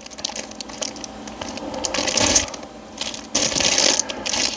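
Plastic seal wrap being torn and peeled off a small cardboard product box by hand, crackling and crinkling. It is loudest around the middle and again near the end.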